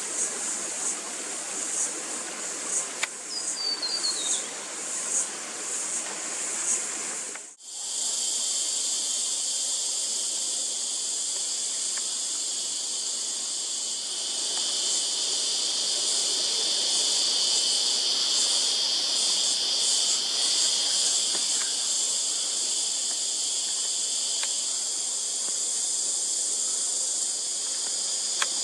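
Steady high-pitched chorus of insects with a slight pulsing, with a short falling whistle about four seconds in. After a brief dropout about seven seconds in, a second, lower-pitched insect chorus joins the first and continues steadily.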